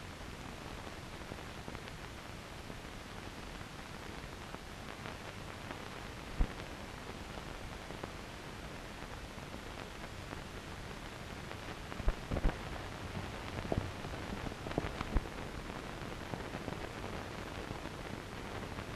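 Steady hiss of an old film soundtrack with no dialogue or music, broken by a sharp pop about six seconds in and a handful more clicks and pops about two thirds of the way through.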